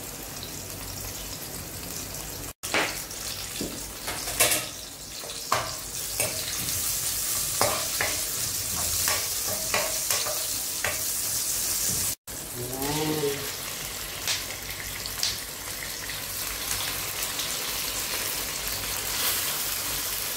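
Garlic, chili and sliced onion sizzling in hot oil in a frying pan, with the scrape and clack of a spatula stirring against the pan. The sizzle gets louder a few seconds in, and the spatula knocks are scattered through the first half.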